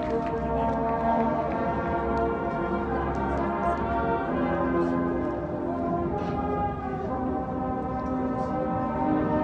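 Marching band playing slow, sustained chords that change a couple of times, with no clear beat.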